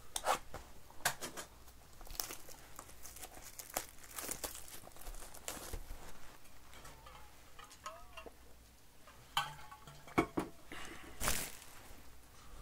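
Clear plastic shrink-wrap being torn and crinkled off a Topps baseball card box, in irregular crackles, the loudest of them in the last few seconds.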